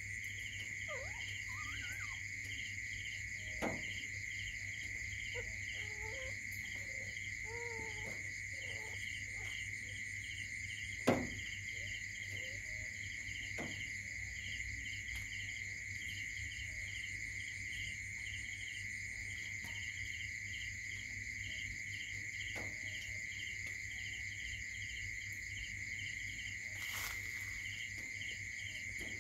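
Night insects chirping steadily: a continuous high trill with regular pulsing cricket chirps over a low hum. Faint wavering squeaks come in the first ten seconds, and a few sharp clicks stand out, the loudest about eleven seconds in.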